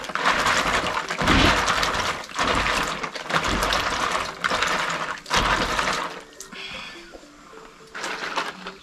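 Hands swishing and rubbing dried food pieces in a basin of water, washing the dust off them, in uneven sloshing surges. The sloshing drops away about six seconds in, leaving only faint sounds.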